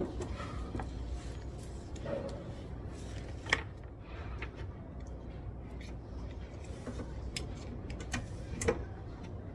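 Library room ambience: a steady low hum with scattered small clicks and taps. Two sharper knocks come about three and a half seconds in and again near the end.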